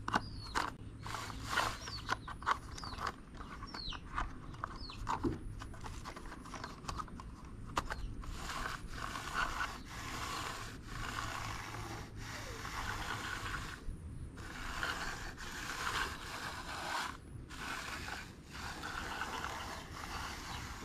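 Small plastic toys being handled: scattered clicks and scrapes, then from about eight seconds in a run of rattling, scraping spells about a second long with short pauses between them.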